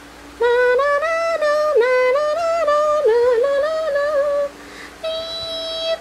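A woman's voice singing a short wordless tune in stepped notes, then, after a brief pause, holding one steady note for about a second.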